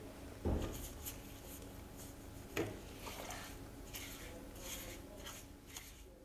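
Stiff paintbrush bristles scrubbing the wet surface of a stone block in a run of short, scratchy strokes, with two light knocks in the first few seconds.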